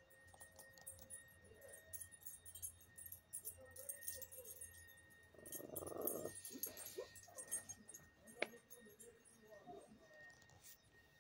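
A pug makes a short, rough, throaty sound about halfway through, among faint snuffles. A single sharp click follows a couple of seconds later.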